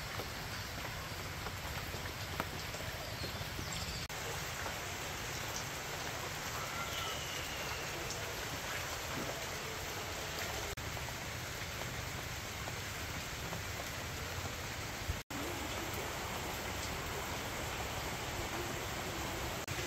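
Steady rain falling, a continuous even hiss, with a momentary dropout about fifteen seconds in.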